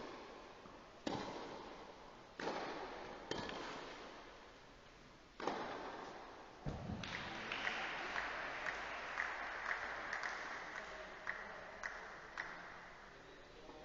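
Tennis ball struck back and forth with rackets in a rally, each hit echoing in the covered hall, about five hits in the first six seconds. A low thud follows, then scattered applause with distinct claps from a small crowd, fading near the end.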